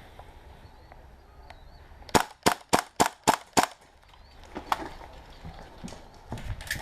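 Airsoft gun firing six quick shots in a row, about three a second, each a sharp crack, followed a second later by a few quieter shots.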